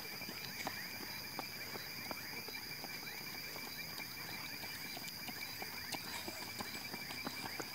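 Running footsteps slapping on asphalt in an irregular patter as several runners go by. Behind them is a steady, high-pitched, rapidly repeating chirring.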